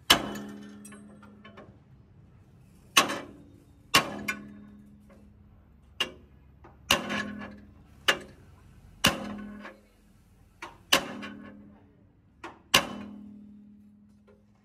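A hammer striking steel: about a dozen single blows at uneven intervals, some close together in pairs, each leaving a metallic ring that fades away.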